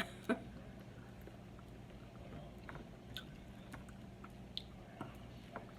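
Close-up chewing and biting of ripe cantaloupe, wet mouth sounds with scattered small smacks and clicks. A faint steady low hum runs underneath.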